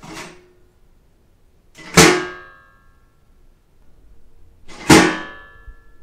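Garbage can lid banging shut twice, about three seconds apart, each a sharp clang with a short ringing tail.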